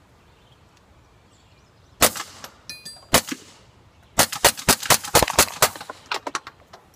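Suppressed .22 pistol firing: a single shot, another about a second later, then a fast string of about ten shots and a few fainter ones. The shots are a little loud for a suppressed .22 because supersonic ammunition is being fired, not subsonic.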